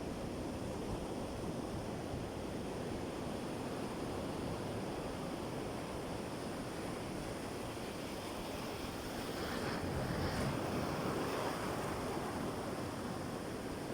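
Sea surf washing on the shore, a steady rush of waves with one wave swelling louder about nine to twelve seconds in.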